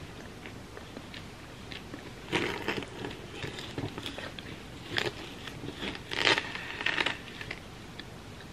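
A knife cutting down through a thick hard chocolate shell and a crispy puffed-rice and peanut filling, giving several short crackling crunches, the loudest about six seconds in.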